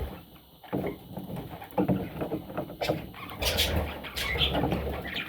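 Budgerigars scratching and shuffling about, with short high chirps from about three and a half seconds in.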